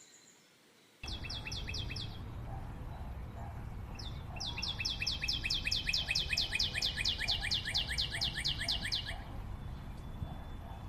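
A bird singing a fast trill of repeated high, down-slurred notes, about six a second, in two bouts: a short one about a second in and a longer one of about five seconds starting about four seconds in. Steady low background noise runs underneath.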